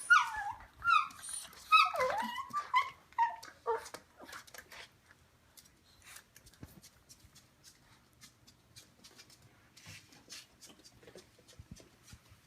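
A Morkie making its funny high-pitched whining yelps while wrestling in play: a quick run of squealing cries that fall in pitch over the first four seconds. After that come only faint scuffling clicks of the two dogs' play.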